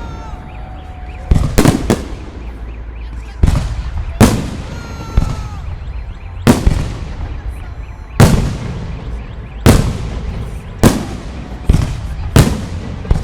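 Aerial fireworks shells bursting in a display: about a dozen loud bangs at irregular intervals, some in quick pairs, each trailing off in a rumbling echo.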